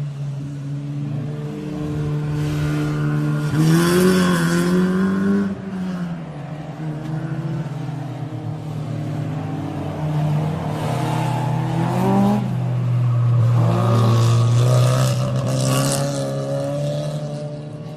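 Sports car engine idling with a steady low note and revved three times, the pitch climbing and then falling back to idle each time.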